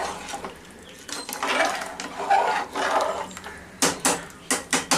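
Rice, water and coconut milk being stirred with a metal ladle in a pressure cooker, a wet scraping and sloshing, followed by a quick run of sharp metal clanks near the end.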